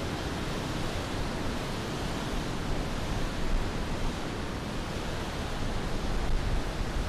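Steady rush of a fast-flowing mountain river, an even hiss of white water with no let-up.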